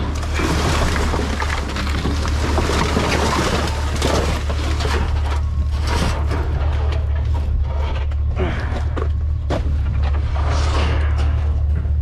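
Rustling and clattering of trash and scrap being rummaged through and handled, with scattered sharp knocks, over a steady low hum from an idling truck.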